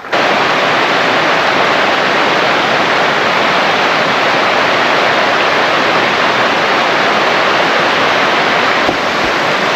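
Steady, loud rush of water pouring over a small creek waterfall. It cuts in suddenly and then holds even, with no change.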